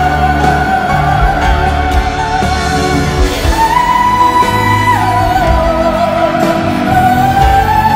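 Live band accompaniment under a high, wordless melodic line sung without lyrics. The line steps up to a long held high note about halfway through, then falls back.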